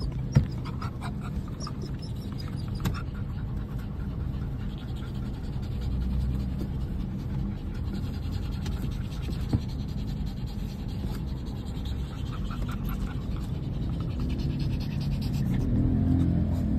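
Steady low road and engine rumble inside a moving car's cabin, with faint shuffling and scratching from puppies moving about on the back seat. A single sharp knock about half a second in is the loudest sound.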